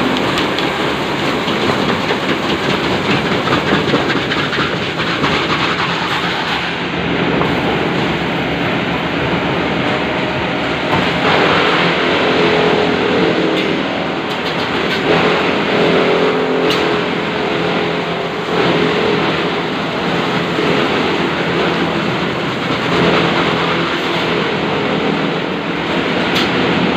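Hydraulic log-peeling (debarking) machine running steadily, its motor and hydraulics working as the bark is stripped off logs. It makes a continuous mechanical din, with a hum that grows stronger in the middle and a few sharp knocks.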